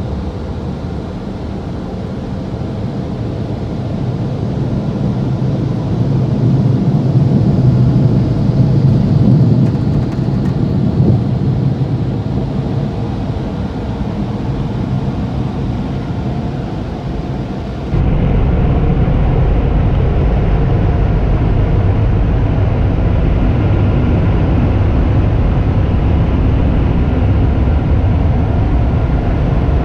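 Automatic car wash bay machinery heard from inside the car: a steady low rushing rumble that swells for a few seconds near the start, then changes abruptly about 18 seconds in to a steadier, slightly louder rumble.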